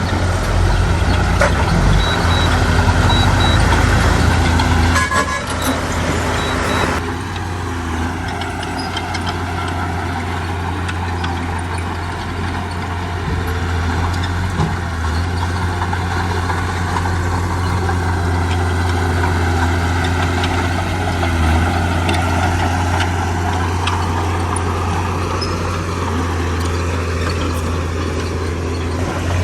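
Diesel engines of heavy earthmoving machinery (bulldozer and dump trucks) running steadily with a low drone. A louder rushing noise over the first seven seconds cuts off sharply, with a few short high beeps between about two and four seconds in.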